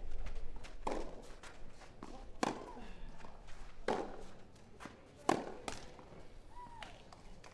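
Tennis rally: a ball struck hard by rackets about every second and a half, with quieter bounces between the hits. A short squeak comes near the end.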